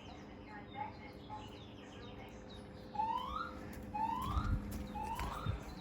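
Fire alarm voice-evacuation speaker sounding a whoop alert tone between announcements: short rising sweeps, about one a second, faint at first and clearer in the second half.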